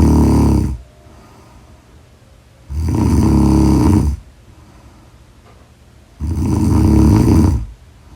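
Loud snoring in a regular rhythm. One snore trails off as the sound begins, then two more full snores follow about three and a half seconds apart, each a low rumble lasting about a second and a half.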